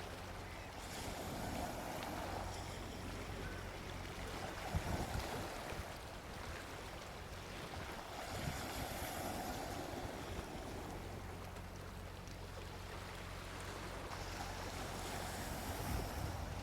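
Gentle sea waves washing onto a beach, the surf swelling and easing every few seconds, over a steady low hum.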